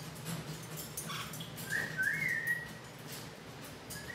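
A pet parrot whistling: a short whistled phrase of two notes, each sliding up then down, a little under two seconds in, with faint scattered clicks around it.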